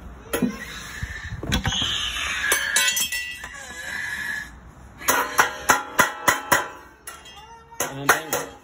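Sheet-metal drip edge flashing rattling and clanking as it is handled and folded, with a quick run of sharp metallic clinks and knocks about five to seven seconds in.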